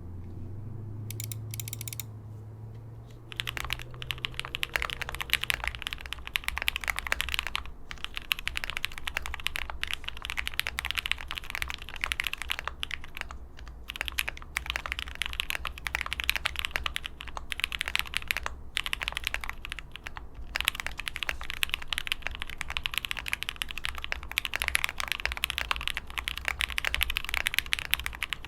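Typing on a custom ai03 Vega mechanical keyboard with lubed SP-Star Sacramento linear switches on a polycarbonate plate, with foam and PBT keycaps: a steady clack of keystrokes with a few short pauses. A low hum comes before the typing, which starts about three seconds in.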